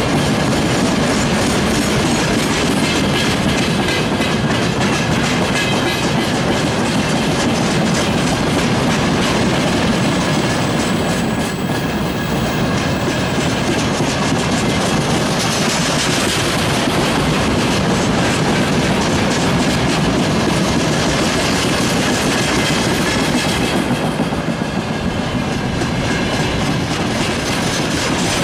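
Freight train of railway tank cars rolling steadily past, their wheels clattering over the rail joints with a continuous rumble.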